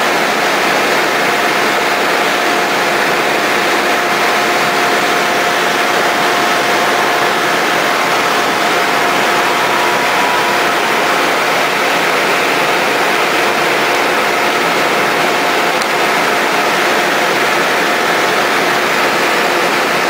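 Engine of a tree service's crane truck running steadily: a constant loud mechanical noise with a steady whine through it.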